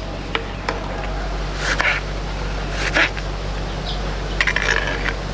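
A few light clicks and scrapes, with the sharpest about two and three seconds in and a quick cluster near the end, over a steady low hum.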